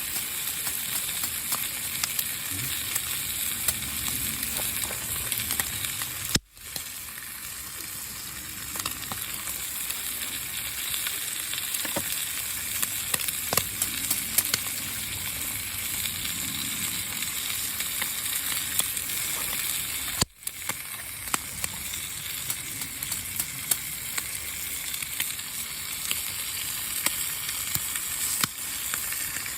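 Food sizzling steadily in a bushcraft frying pan over a campfire, with scattered sharp pops. The sound drops out briefly twice, about six seconds in and again about twenty seconds in.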